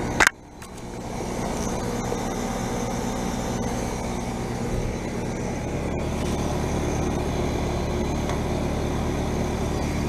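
Heat pump outdoor unit running with a steady low hum and fan noise, from a neighbouring unit that drowns out the unit in defrost. A brief sharp click at the very start.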